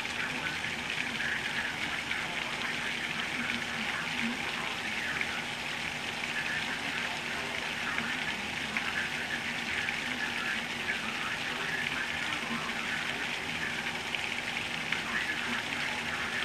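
Torrential hurricane rain pouring down steadily, a dense, even hiss of rain with no let-up.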